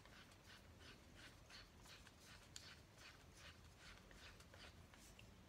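Faint, even scratchy strokes, about three a second, of hands turning the plastic Blue Snowball iCE microphone ball as it is fitted onto its stand, over low room hum.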